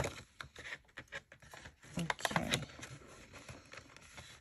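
Frosted plastic cash envelope and paper bills being handled: irregular sharp clicks and taps of long fingernails on the plastic, with light rustling, busiest about two seconds in.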